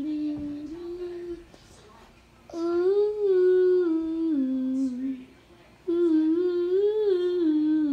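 A person humming a tune in three phrases of a couple of seconds each, the pitch gliding up and down, with short pauses between phrases.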